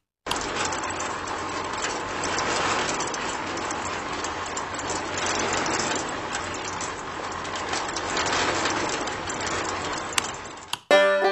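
Miniature concrete mixer running: a steady mechanical churning and rattling that swells and eases about every three seconds. It starts abruptly and cuts off just before the end.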